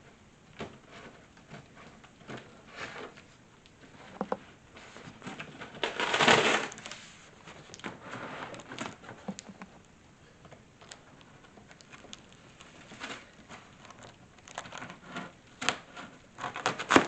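Scissors cutting into a large cardboard box, with scattered clicks and rustling of the cardboard and a louder rasp lasting about a second, roughly six seconds in.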